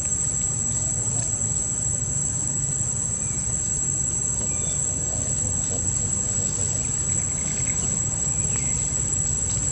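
A steady, high-pitched insect drone runs unbroken over a constant low rumble, with a few faint short chirps in between.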